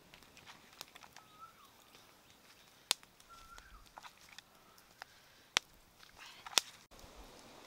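Cooking fire crackling under prawns grilling on bamboo skewers: a scatter of sharp pops, a few of them loud, over a faint background. Faint wavering chirps come twice.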